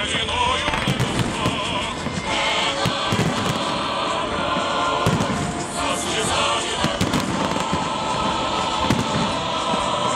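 Aerial fireworks shells bursting in quick succession, with crackling from glittering stars, over music playing.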